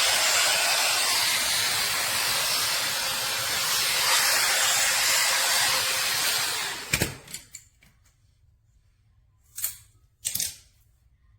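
Hair Trends Nano Titanium hot air brush blowing steadily, a hiss of air with a faint whine, then switched off with a click about seven seconds in. Two short clatters follow as it is handled.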